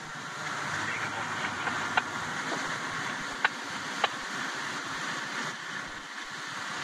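Inside a vehicle's cab while driving on a snow-covered road: a steady hiss of engine and tyre noise, with three sharp clicks in the middle.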